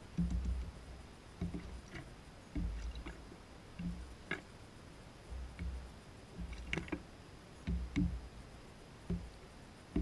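A juvenile gull pecking and stepping about right beside the camera: irregular soft thumps and sharp taps, one or two a second.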